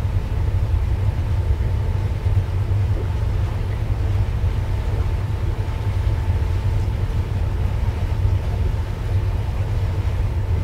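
Steady low rumble of the expedition cruise ship MV Seaventure under way at slow speed, with a faint steady hum above it.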